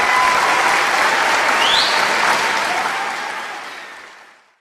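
Audience applause, with a brief rising whistle about a second and a half in, fading out over the last second or so.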